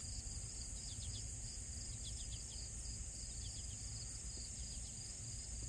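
A steady, high-pitched insect chorus, with a few short bird chirps about two seconds in and a low rumble underneath.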